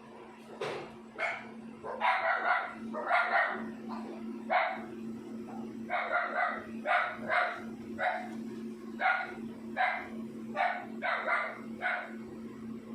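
A dog barking repeatedly, a dozen or so short barks at uneven intervals, over a steady low hum.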